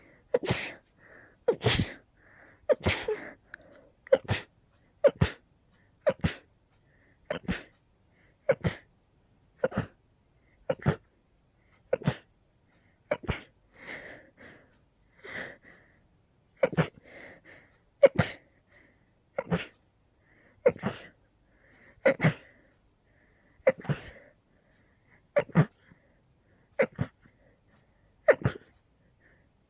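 A person sneezing over and over in a long fit, about twenty sneezes at roughly one every second and a quarter, with short softer inhales between them. The uploader puts the sneezing down to a cold on top of allergies.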